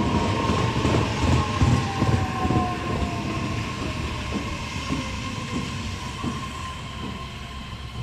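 JR East E131 series electric train pulling in and slowing to a stop. A heavy rumble of wheels on rail gradually fades, under a whine that falls slowly in pitch as the train slows, with a few clacks over the rail joints.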